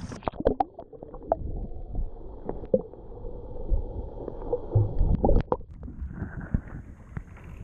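Muffled, churning water sound heard underwater, with scattered knocks and clicks and no clear high end, like an action camera held just below the surface beside a kayak.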